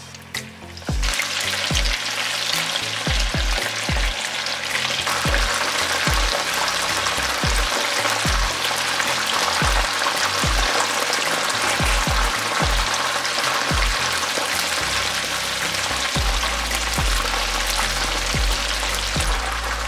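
Flour-and-cornstarch-coated chicken gizzards deep-frying in hot oil: a loud, dense crackling sizzle that starts suddenly about a second in as the pieces go into the oil, then holds steady.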